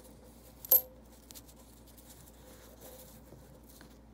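Pennies handled on a cloth surface: one sharp metallic clink with a short ring about three quarters of a second in, then a couple of faint taps.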